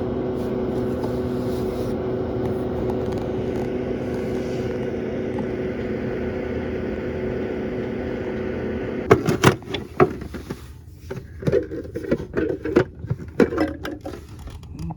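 Home dehumidifier running with a steady hum from its compressor and fan, which stops abruptly about nine seconds in. Then come a series of sharp clicks and knocks.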